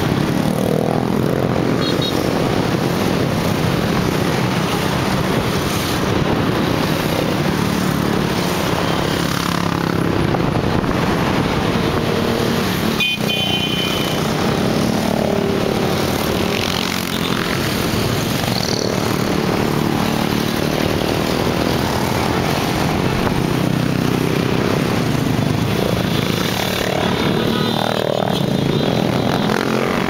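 Many small motorcycle and scooter engines running together in a moving group ride, a loud steady mix of engine hum and road noise. Several bikes rev up and back down at times. A short high beep sounds about thirteen seconds in.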